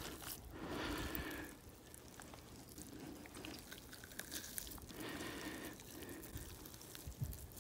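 Faint wet squelching and tearing as a bullet-damaged cooked ham is pulled apart by hand, in soft bursts near the start and again about five seconds in.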